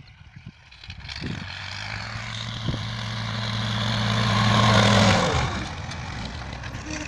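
A motor vehicle engine coming closer and passing by: a steady hum grows louder to a peak about five seconds in, then drops in pitch and fades.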